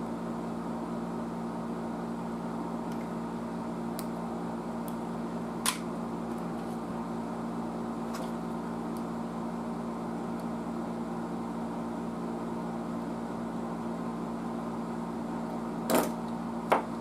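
Steady electrical hum, like a small mains-powered fan or motor running, with a few light clicks and two sharper clicks near the end from handling clips and tools on the tester's metal panel.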